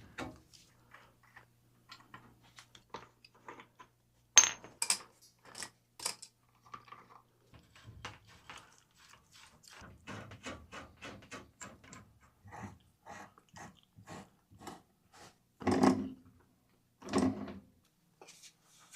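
Scattered metallic clinks, taps and knocks of hand tools and fittings during plumbing work, with a sharp click about four seconds in and two louder thuds near the end.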